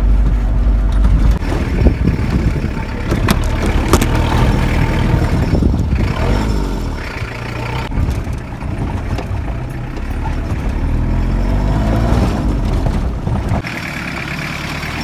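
Old Toyota pickup's engine running under load with heavy rumble and rattling knocks, heard from inside the cab on a rough dirt road, the engine pitch rising and falling a couple of times. Near the end the sound changes abruptly to the truck heard from outside.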